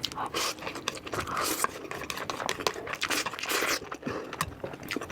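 Eating utensils clicking and scraping against dishes in a run of short, irregular clicks.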